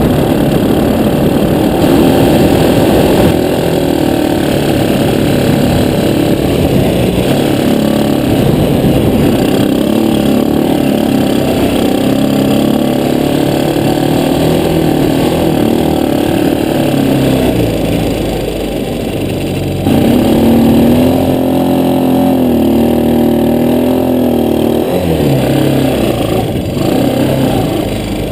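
Jaguar ATV's engine running under way in sand, its revs rising and falling with the throttle. About two-thirds of the way through the revs jump up and hold for several seconds, then drop back.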